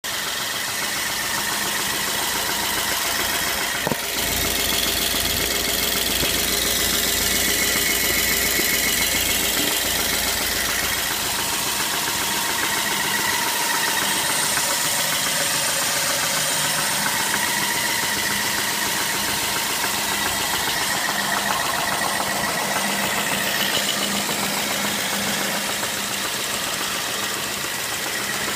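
BMW E90 3 Series engine idling steadily with an unexplained knock, and one sharp click about four seconds in.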